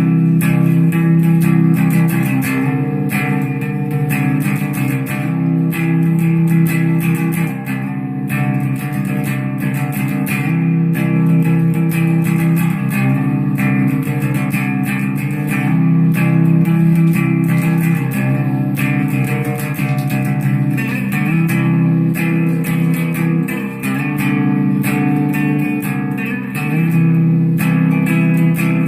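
Electric guitar fitted with Dialtone pickups, played on the neck pickup: steady strummed chords moving through a repeating chord progression, changing every couple of seconds.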